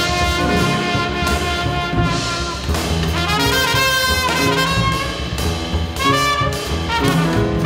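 Small jazz band playing: a trumpet carries the melody with held notes and a quicker run a few seconds in, over piano, bass and drums with cymbal strokes.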